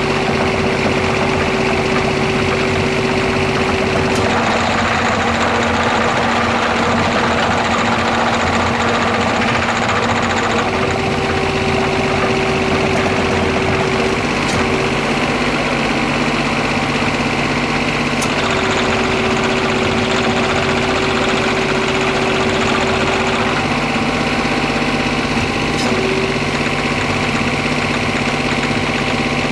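Komatsu PC10-7 mini excavator's diesel engine running steadily. A steady whine comes and goes in stretches of several seconds over the engine sound.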